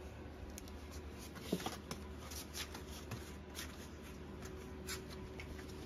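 Faint scratching and light ticking of bull terrier puppies' claws on a plywood floor as they move about.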